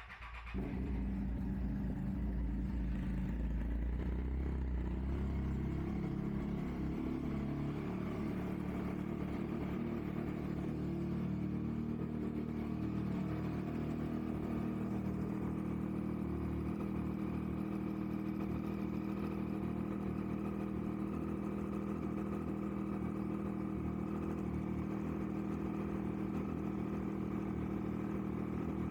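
Triumph Street Triple 675R's 675 cc inline three-cylinder engine idling steadily, warming up to operating temperature so air can be bled from its freshly refilled cooling system.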